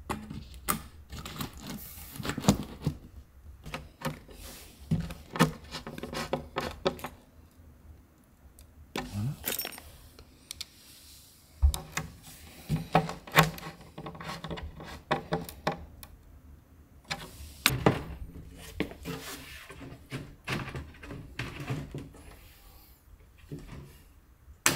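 Flat-pack kitchen cabinet being assembled by hand: laminated panels knocked and set down, metal fittings rattling, and a screwdriver turning connector bolts into the panels. Irregular clicks and knocks, with one heavier thud about halfway through.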